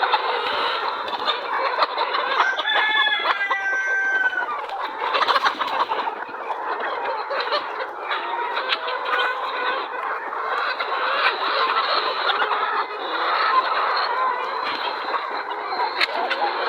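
A large flock of chickens clucking and calling all together, with a rooster crowing about three seconds in.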